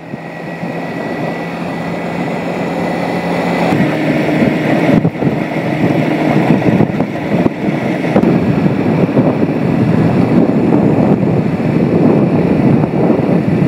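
Motorcycle engine running steadily at road speed on a dirt road, with wind noise on the microphone; the engine note steps up in pitch about four seconds in.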